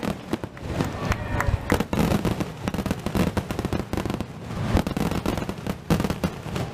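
Fireworks display: a dense, continuous run of bangs and crackling, many reports a second.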